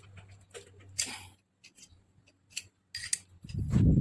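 Sharp metallic clicks and short scrapes of a C-clamp being worked to crimp a connector onto a welding torch cable, with a louder, dull low sound near the end.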